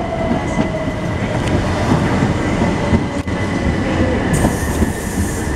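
Southern Class 377 Electrostar electric multiple unit pulling out and passing close by: a dense rumble of wheels on the rails, with a steady high electric whine and a lower motor tone that slowly falls. A hiss comes in near the end.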